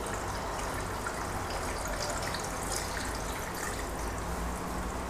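Water poured in a thin, steady stream into an earthenware güveç casserole, trickling and splashing over the lamb shanks and potatoes inside.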